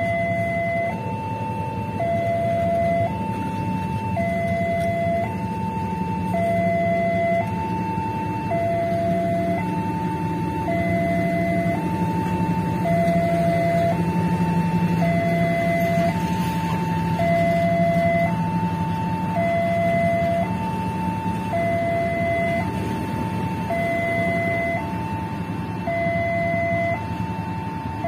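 Railway level-crossing warning alarm sounding, a steady electronic two-tone with high and low notes alternating about once a second. Under it is the low steady rumble of a slow-moving passenger train.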